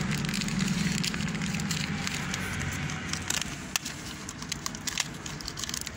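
Clear plastic parts bag crinkling and crackling as it is handled, with scattered small clicks.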